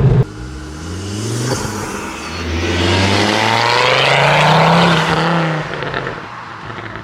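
Ford Focus XR5 Turbo's turbocharged five-cylinder engine and exhaust under acceleration: the note drops away suddenly at the start, then rises steadily in pitch for about five seconds before easing off. The exhaust leak has been fixed, so the exhaust is much quieter than a straight pipe.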